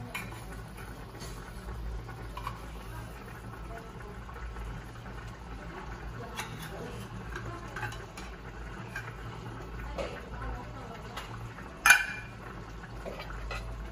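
A metal spoon scraping liver spread out of a tin can and clinking against the can and the pan, over a simmering stew. There is one sharp, louder clink near the end.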